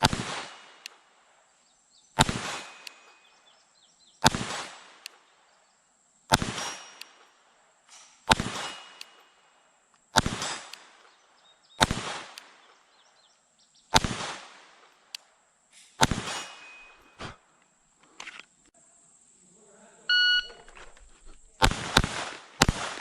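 Glock 44 .22 LR pistol fired in slow, aimed single shots, about one every two seconds, nine in all; several shots are followed by a faint ring of steel struck at long range. Near the end a shot timer beeps and a quick string of four shots follows.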